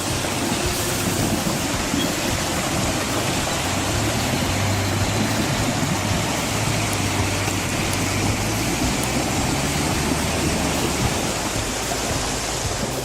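Machine engine running steadily under a constant loud rushing noise, with a low hum that grows stronger in the middle.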